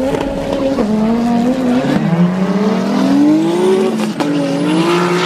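Race car engine accelerating hard at full throttle, its pitch climbing steadily, then dropping sharply at a gear change about four seconds in before climbing again.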